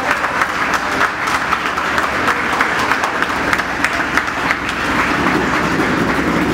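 A small group applauding: a steady, dense patter of hand claps.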